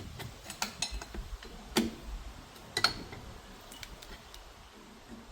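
Scattered light clicks and taps from tools and hardware working an old safe's door, with two sharper clicks about two and three seconds in.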